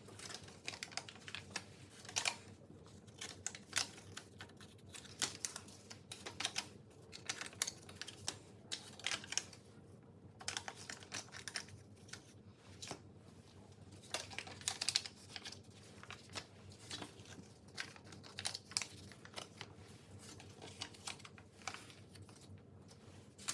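Irregular light taps and clicks with plastic crinkling, from cut mantou dough pieces being set into plastic by hand.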